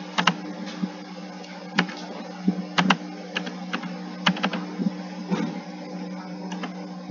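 Computer keyboard keys tapped one at a time, slowly and unevenly, over a steady low hum.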